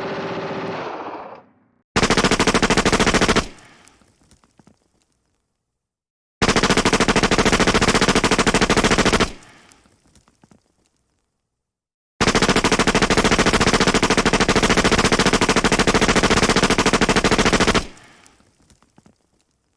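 Submachine gun firing three bursts of full-automatic fire: about a second and a half, then about three seconds, then about five and a half seconds, each a rapid, even string of shots ending in a short fading echo. Before the first burst, a steady pitched sound fades out.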